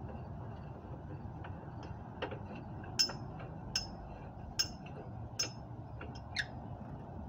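Metal hand-tool clinks while a floor jack is worked through a long steel pipe on its handle: sharp metallic clicks about one every ¾ second, heard over a steady low hum.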